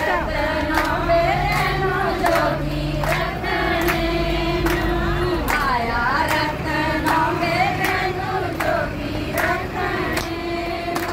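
Group of women singing a song together, with hand claps keeping a steady beat about once every three quarters of a second.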